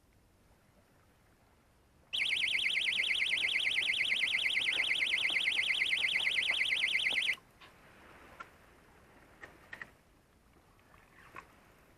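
Electronic alarm buzzing in a loud, high-pitched tone that pulses rapidly for about five seconds, then cuts off suddenly; a few faint knocks follow.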